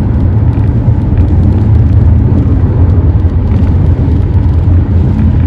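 Steady low rumble of a car's road and engine noise heard from inside the cabin while driving at speed.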